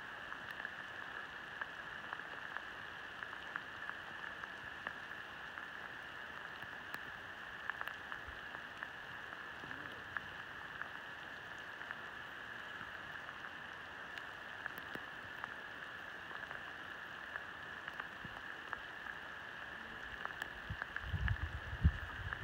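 Soft, continuous patter of many sheep hooves as a mob of shorn sheep walks over damp, leaf-covered ground, over a steady high hiss. A few low rumbles hit the microphone near the end.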